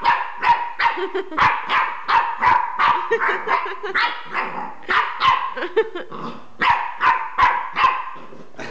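Jack Russell terrier puppy barking repeatedly at an unfamiliar toy: short, sharp barks about two to three a second, with a brief pause around the middle.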